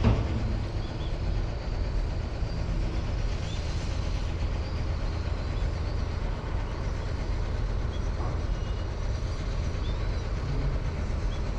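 Strong wind buffeting the microphone: a steady low rumble, with a few faint short chirps above it.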